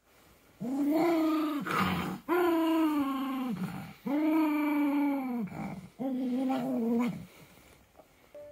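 Pomeranian growling in protest at having its paws wiped with a towel: four long, drawn-out vocal growls, each rising and falling in pitch.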